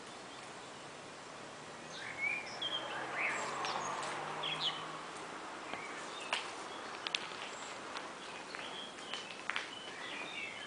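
Songbirds chirping and calling in short high whistles over a steady outdoor hiss, in two bursts a few seconds apart, with a few sharp clicks in between.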